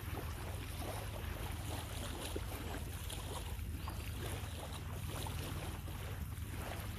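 Steady low rumble of wind buffeting the microphone, with a faint even hiss over it.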